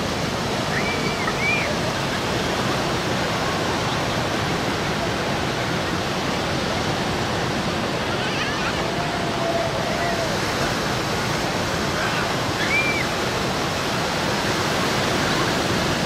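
Small ocean waves breaking and washing up a sandy beach in a steady rush of surf. Faint, brief calls and shouts from distant people in the water rise above it now and then.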